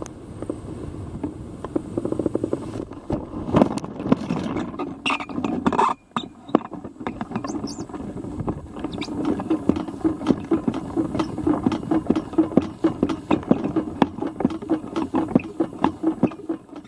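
Air rushing over a hang glider's camera as it skims low over grass, then a clatter of knocks and scrapes as it touches down after a late flare. The pilot then walks the glider through the grass: steady footsteps, about three a second, with the aluminium frame rattling.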